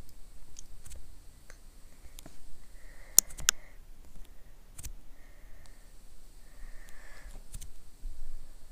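A few sharp clicks: a quick cluster about three seconds in, then single clicks near five seconds and near the end, over faint background hiss and a thin high tone.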